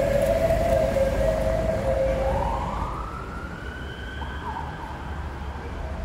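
An emergency-vehicle siren sounds over the low rumble of street traffic. It holds steady tones at first, then sweeps up in pitch about two seconds in, and the whole sound slowly fades.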